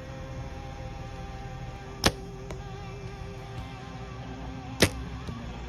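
Two bow shots, one about 2 seconds in and one near the end: each a sharp, loud snap at release, followed about half a second later by a faint thud of the arrow striking the target at 30 yards. Background music plays underneath.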